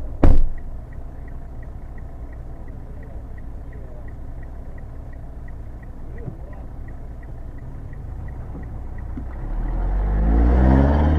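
A car engine idling with a steady low hum and a light ticking about three times a second, with a single loud thump just after the start. Near the end the engine revs up, rising in pitch and growing louder.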